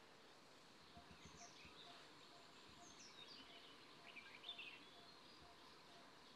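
Faint forest ambience: a few scattered bird chirps over a soft hiss, with a quiet note repeating about twice a second.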